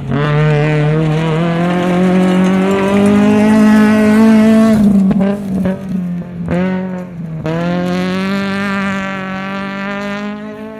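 Rally car engine at high revs, pulling hard with its pitch slowly rising for about five seconds. In the middle the revs dip sharply a few times, then it accelerates again with the pitch climbing.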